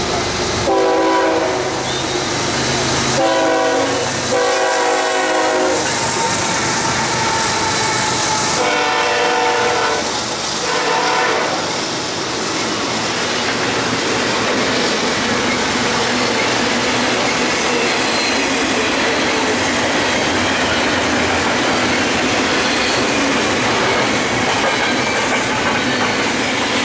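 BNSF freight train passing close by: the locomotive's air horn sounds five blasts of about a second each over its first dozen seconds, then the steady rumble and clatter of double-stack container cars rolling past.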